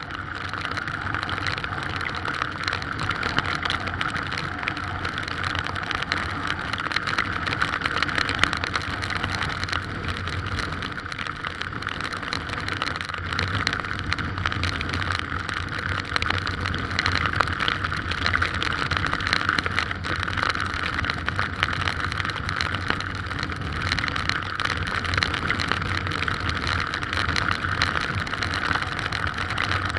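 Strong wind and heavy rain making a steady, unbroken noise, with a low steady hum beneath it.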